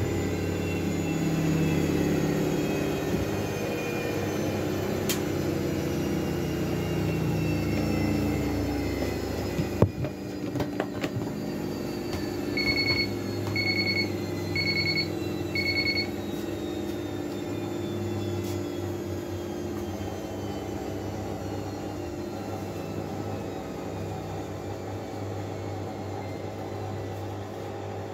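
Miele W433S washing machine with its drum winding down from a spin, a falling whine over a steady hum. About ten seconds in a click sounds, then the machine beeps four times, about once a second, and a quieter steady hum remains.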